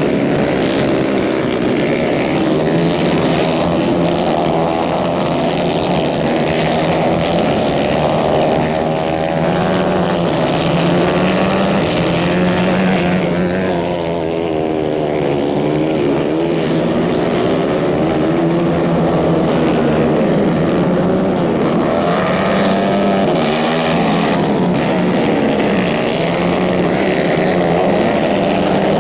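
Several 150 cc racing kart engines running hard together, their pitches rising and falling as the karts accelerate and lift through the corners.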